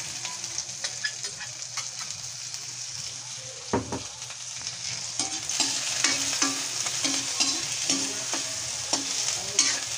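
Garlic and sliced onions sizzling in hot oil in a metal wok, with a single knock about four seconds in. From about five seconds in, a metal spatula scrapes against the wok in short repeated strokes as the onions are stirred.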